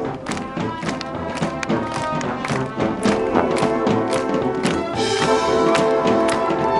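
A high-school marching band playing live: brass and woodwinds over a steady drum beat. It swells fuller and brighter about five seconds in.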